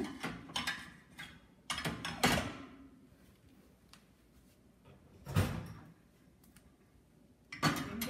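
Stainless-steel plates knocking against each other and the wire rack of a dishwasher's lower basket as they are set in, a couple of sharp metallic knocks with a short ring. A single dull thump follows a few seconds later.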